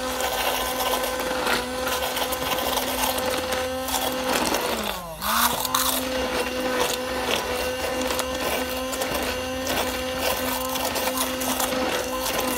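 Immersion (stick) blender running steadily with its blade submerged, blending a green herbal mixture into melted glycerin soap base. About five seconds in, the motor briefly slows and then comes back up to speed.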